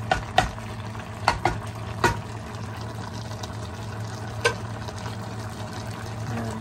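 Wooden spatula stirring a thick coconut-milk stew in a stainless steel pot, with several sharp clacks against the pot in the first two seconds and one more a little past the middle, over a steady low hum.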